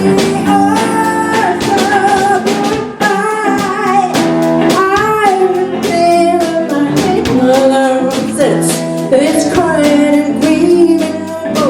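A band playing live: guitar and drums under a singing voice or wavering lead line.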